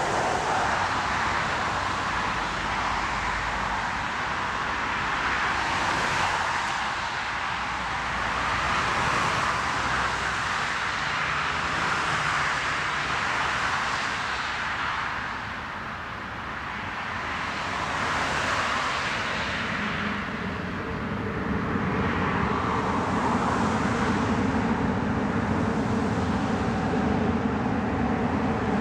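Aircraft landing on a wet runway: a steady rushing hiss of engine noise and spray that dips briefly about halfway. From about two-thirds through, a deeper jet-engine drone with a steady hum comes in as a twin-engine wide-body jet rolls out.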